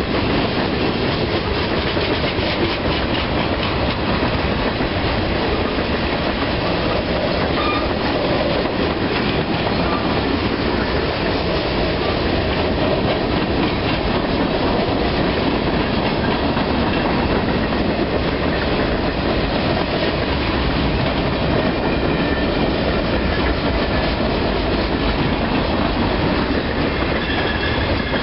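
A freight train's boxcars and tank cars rolling steadily past, their wheels clacking over the rail joints.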